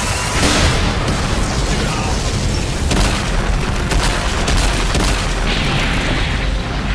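Battle sound effects from an animated fight: a sustained explosion blast with a heavy low end, with sharp impacts about three and four seconds in.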